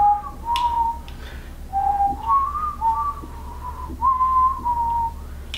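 Two men whistling the same tune at once, at times on two different pitches, in a short stepwise melody that stops about five seconds in.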